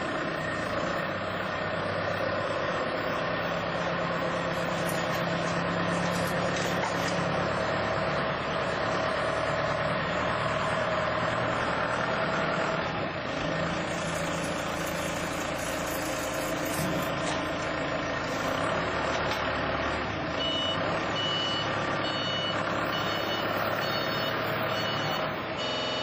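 Forklift running, its engine and hydraulics giving a steady drone while it handles drums. Near the end a reversing beeper joins in with short repeated beeps.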